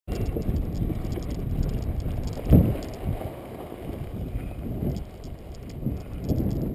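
Kite buggy rolling over rough, grassy ground: a steady low rumble from the wheels and frame, with one hard thump about two and a half seconds in and smaller jolts after it.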